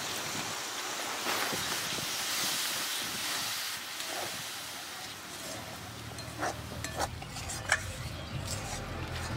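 Water poured into hot oysters and spice paste in a metal kadai, hissing and sizzling for the first few seconds, then a steel spatula scraping and clicking against the pan as the masala is stirred and fried down. A low rumble joins in during the second half.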